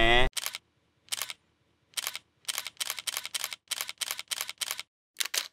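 Camera shutter sound effect clicking about fifteen times in sharp, separate clicks: a few spaced ones at first, then a quicker run, with silence between.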